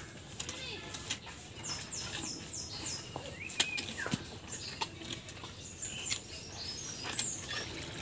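Cattle chewing and tearing green fodder, giving scattered short crunching clicks. Small birds chirp over it, with a quick run of four falling notes about two seconds in and a few whistled notes a little later.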